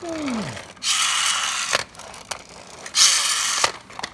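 Die-cast toy bus's pull-back spring motor: a short whine falling in pitch as the motor runs down, then two rasping, clicking bursts about a second in and three seconds in as the bus is dragged backwards on its wheels to wind the motor. The second burst is the louder.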